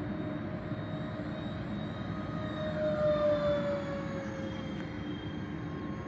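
Twin electric ducted fans of a Dynam Turbojet RC model jet whining in flight. The whine grows louder about three seconds in, then its pitch slides down a little as the plane goes past.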